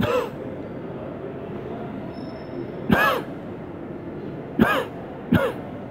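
Steady hum of a large shopping-centre hall. Four short cries fall in pitch over it: one at the very start, one about three seconds in, and two close together near the end.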